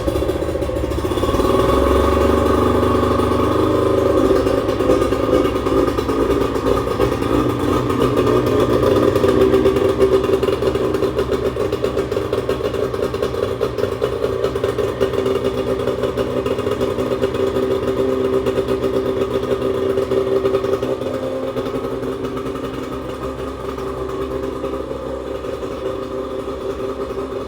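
Carbureted outboard motor of a bass boat running steadily just after being started, settling to a slightly lower, quieter run after about twenty seconds. The motor has just been tuned, with its carburetors rebuilt, linked and synced and its timing reset.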